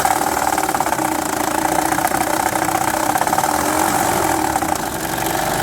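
2006 Honda Odyssey's 3.5-litre V6 being revved, running with a fast, continuous rattle from the timing belt area. The mechanic puts the rattle down to a loose, worn timing belt and tensioner that is flapping.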